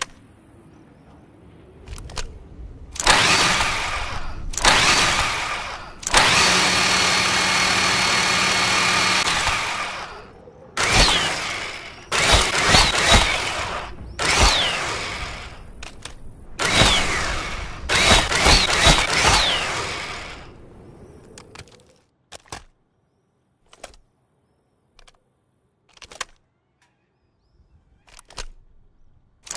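Chainsaw sound effect: a motor revving in a series of bursts, one held for about three seconds, the others shorter, with the pitch sweeping as it revs. It stops about two-thirds of the way through, leaving a few sharp clicks.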